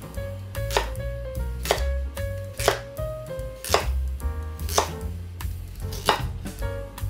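Chef's knife chopping a carrot into thick rounds on a bamboo cutting board, one cut about every second, each ending in a sharp knock of the blade on the board.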